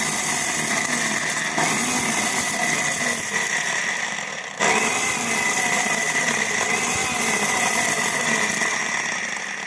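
Hamko mixer grinder's motor running at speed, grinding dried chillies in its jar, with a steady high whine over the whirring. About four and a half seconds in it drops off briefly and starts again, and near the end it winds down as it is switched off.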